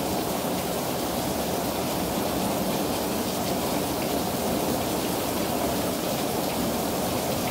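Heavy rain pouring down steadily in a severe storm.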